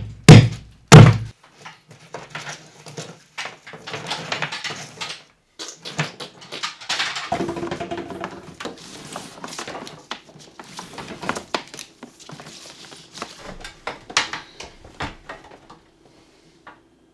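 Two loud hammer blows about half a second apart, driving cable staples into a wooden ceiling joist, end a run of strikes about a second in. Then comes a long stretch of rustling and light clicking as plastic-sheathed electrical cable is handled and pulled along the ceiling.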